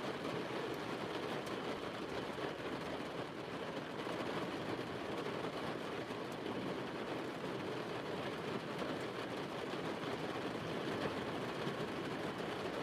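Steady rain on the car's roof, heard from inside the cabin as an even hiss.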